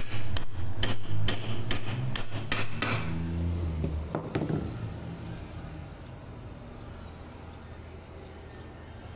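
Hammer blows on wood, about two a second for the first three seconds, then a few more around four seconds in, over a steady low hum.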